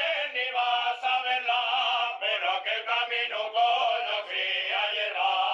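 Background music: a male voice singing a chant-like folk song, with long held notes near the end. The recording sounds thin, with no bass.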